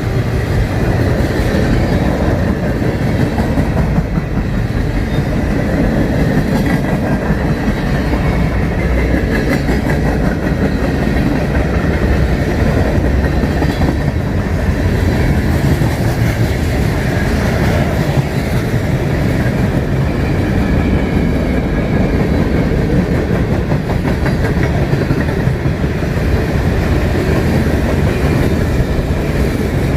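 Train rolling past with a steady, loud rumble of railcars on the track.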